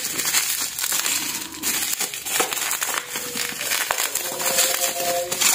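Bubble-wrap packaging crinkling and rustling as it is handled and pulled open, with irregular small crackles.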